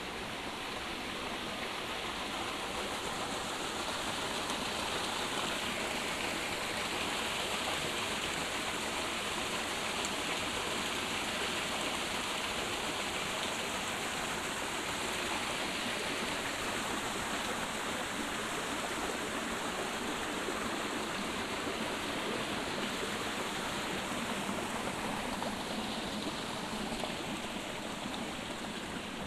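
Steady rush of running water, a little louder for several seconds early in the stretch.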